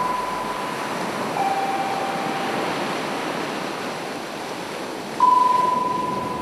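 Surf washing onto a sandy shore, a steady rushing wash, with clear single-pitched ringing tones laid over it. One tone carries on from the start, a lower one enters about a second and a half in, and a higher one strikes suddenly about five seconds in and slowly fades.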